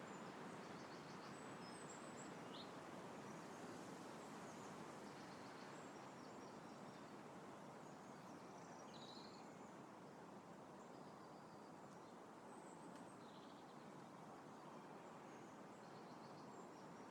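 Faint, steady rush of wind through trees, with small birds giving short high chirps here and there over it.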